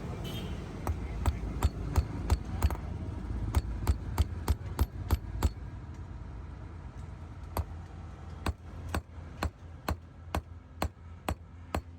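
Hammer striking metal in a steady run of about two to three blows a second, pausing for about two seconds midway and then going on with lighter blows, over a low steady hum.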